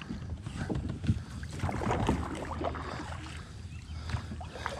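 Water splashing and sloshing at the side of a plastic fishing kayak as a catfish is landed in a net, with small irregular knocks on the hull and wind rumbling on the microphone.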